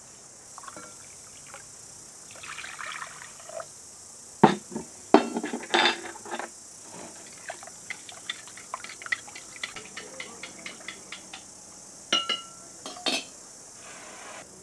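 Liquid poured from a copper jug, then knocks and clinks of copper and glass kitchenware, and a run of light clicks and splashes as a hand mixes liquid in a glass bowl. Near the end come two short, ringing clinks.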